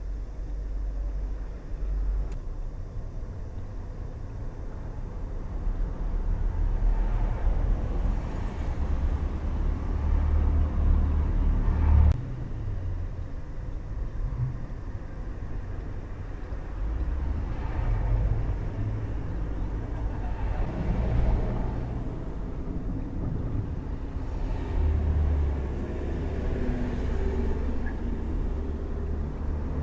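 Low rumble of road traffic, swelling and fading over several seconds as cars pass, with a single sharp click about twelve seconds in.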